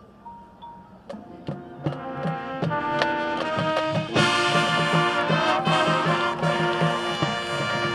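Marching band music: after a soft mallet-percussion tone, percussion hits come in about a second in and build, then the full brass section enters loudly about four seconds in with sustained chords over a pulsing low beat.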